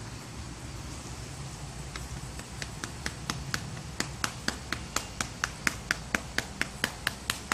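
A hand patting a cat's back in a quick, even run of light pats, about four a second, starting faintly about two seconds in and growing louder.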